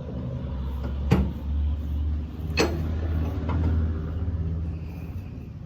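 A vehicle engine running with a steady low hum, with two sharp knocks, about a second and about two and a half seconds in, and a lighter one soon after.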